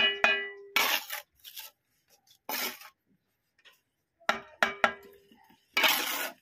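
Steel bricklaying trowel tapping a clay brick down into its mortar bed, sharp ringing clinks twice at the start and three more about four seconds in, with the trowel scraping wet mortar off the joint in short rasps between them and near the end.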